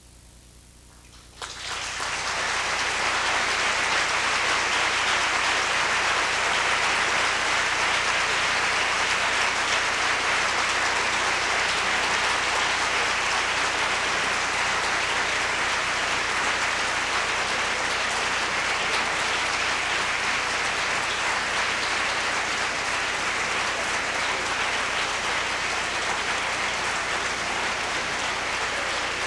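Concert audience applauding, breaking out about a second and a half in after a brief hush at the end of the piano piece and carrying on steadily.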